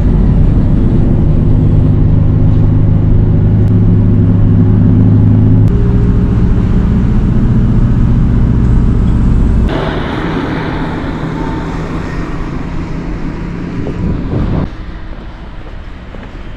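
Motor vehicle engine running, heard from on board: a loud, steady low drone whose pitch shifts about six seconds in. About ten seconds in the drone eases and a rushing road-and-wind noise takes over, dropping away about fifteen seconds in.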